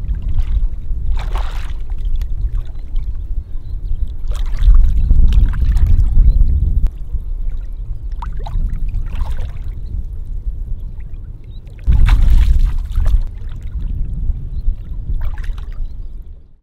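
Shallow water sloshing and splashing as a person wading waist-deep works with his hands at a submerged brush-park fish trap, a splash every second or two. Surges of heavy low rumble come about four and twelve seconds in.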